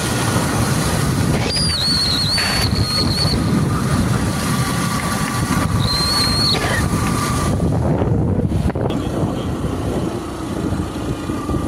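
Wind rushing and buffeting over the microphone on a moving motorcycle, with the bike's engine running underneath. Two brief high, thin whistling tones come through, about a second and a half in and again around six seconds in.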